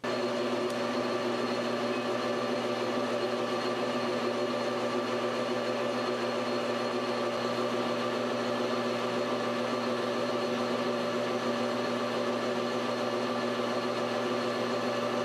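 Metal lathe running at a steady speed, its motor and gear drive giving a steady whine with several held tones, as a spot drill in the tailstock cuts into the end of the spinning rod.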